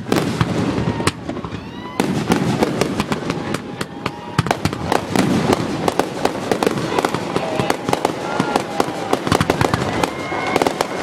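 Fireworks display: a dense, rapid run of bangs and crackles, with no break.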